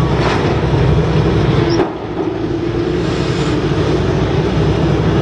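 Heavy excavator engine running steadily with a low rumble, dipping abruptly about two seconds in and then carrying on.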